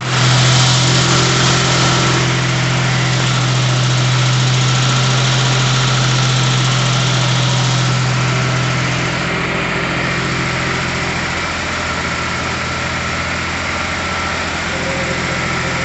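Homemade generator set driven by a car engine, running steadily with no load on it, a strong even hum. It becomes slightly quieter about nine seconds in.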